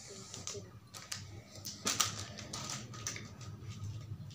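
Scattered light clicks and taps of dishes, glass and utensils being handled on a table, with one sharper click about two seconds in.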